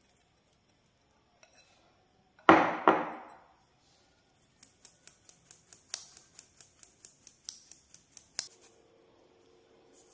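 Stainless-steel mesh sieve being shaken and tapped over a steel plate while sifting gram flour rubbed with ghee and milk, forcing it through in grains: one loud clink with a short ring about two and a half seconds in, then a run of light taps at about four a second, and a sharp click near the end.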